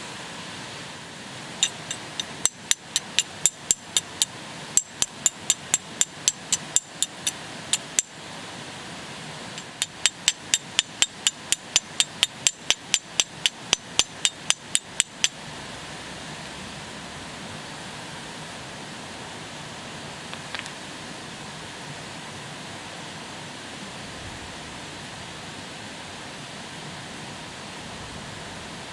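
Flint and steel struck repeatedly to throw sparks for lighting a fire: sharp, bright metallic clicks about three a second, in two runs with a short pause between them, stopping about halfway through. A steady, even hiss follows.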